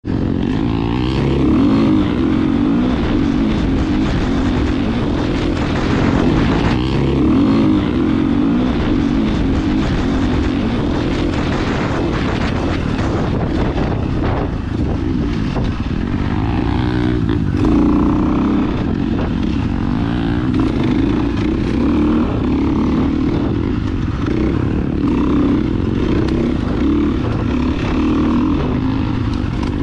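Dirt bike engines running, a steady engine note that swells and eases a little with the throttle.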